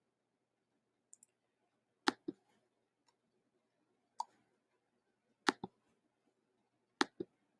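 Quiet computer clicks as the on-screen page controls are worked, mostly in quick pairs, four groups spread over the few seconds, with faint room tone between.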